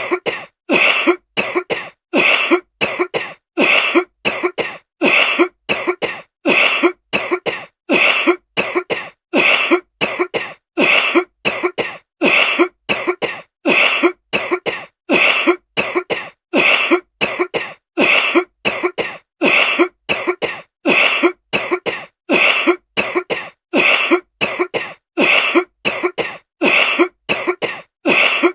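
A woman coughing over and over: short coughs in quick, evenly spaced succession, with no break.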